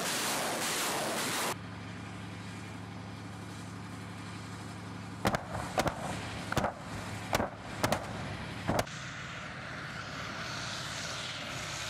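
TOS-1A Solntsepyok thermobaric rockets: a loud rocket roar that cuts off about a second and a half in, then, a few seconds later, a string of six sharp explosion cracks over about three and a half seconds as the rockets hit the target area. Near the end a tracked vehicle's engine and tracks are heard.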